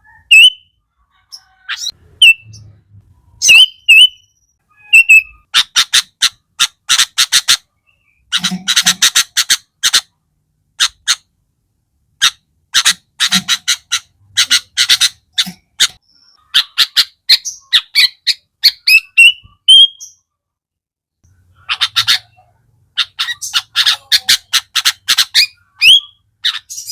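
Sooty-headed bulbul (kutilang) singing: short upslurred whistled notes, then several rapid, harsh chattering runs of one to four seconds each. These are the rough 'isian' fill phrases used to stir other kutilang into song.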